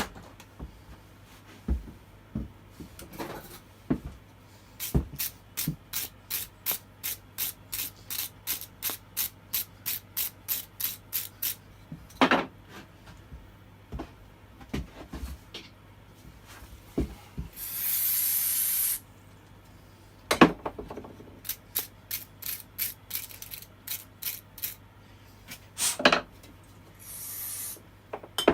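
Runs of evenly spaced light mechanical clicks, about two or three a second. About two-thirds through, a one-second hiss of an aerosol spray being squirted into the chainsaw's cylinder, priming it for a start, with a shorter, fainter hiss near the end.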